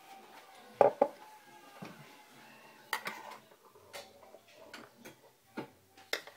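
Ceramic mug, metal milk-frother jug and spoon knocking and clinking as they are handled while frothed milk is poured. A sharp double knock comes about a second in, then single clinks about once a second.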